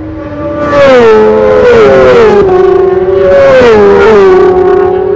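Racing motorcycle engine at high revs, accelerating hard through the gears: the note climbs and then drops sharply at each upshift, three times.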